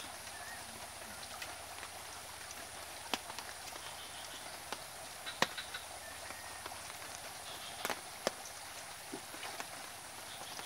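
Quiet outdoor background: a steady hiss with a few scattered sharp clicks, the loudest about halfway through, and faint high chirps now and then.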